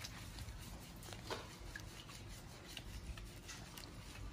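Faint rubbing with a few small clicks as hands scrub a baby monkey's wet fur during a bath.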